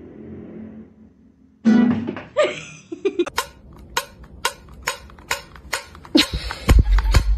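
Acoustic guitar played softly, then after a cut a run of sharp, evenly spaced metallic taps, about two a second, from a finger tapping the lid of a metal can.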